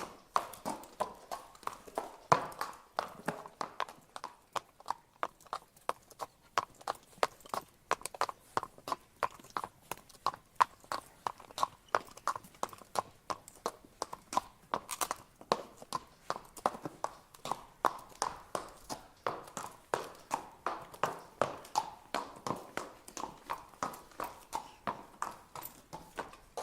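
Horse walking, its hooves striking the ground in a steady clip-clop rhythm of sharp hoofbeats.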